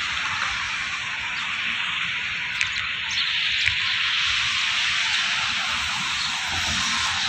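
Steady rushing hiss of water, swelling slightly in the middle, with a couple of faint clicks.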